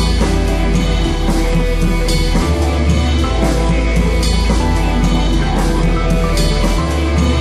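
Rock-style background music with guitar, drums and a heavy bass line that changes note every second or two.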